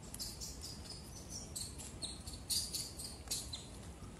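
Small bird chirping: a string of short, high-pitched chirps at slightly varying pitch, irregularly spaced, loudest a little past the middle.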